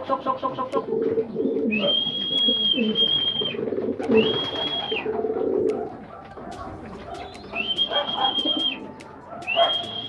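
Domestic racing pigeons cooing in the loft, a dense low throaty chorus that thins out about six seconds in. A high, steady tone sounds four times, each about a second long, alongside scattered light clicks.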